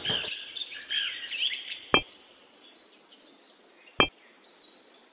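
Birds chirping with a brief rush of noise at the start. The chirping fades after about a second and a half. Two single short, sharp notes follow about two seconds apart, the first notes of a keyboard tune.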